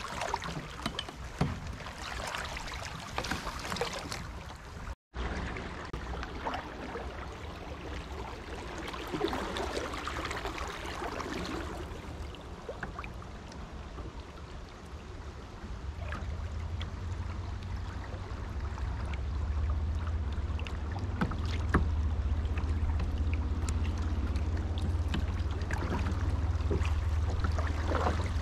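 River water around a plastic kayak. First, water sloshes and small knocks come as the kayak is handled in a shallow stream. After a cut, water ripples and washes past the kayak's bow as it floats downstream, with a low rumble building in the second half.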